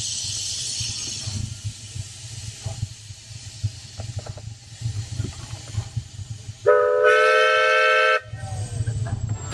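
Small steam locomotive running along the track: a low rumble with light clicks and knocks, and a hiss of steam that fades in the first half second. A little before the end, its steam whistle gives one blast of about a second and a half, several notes at once, the loudest sound.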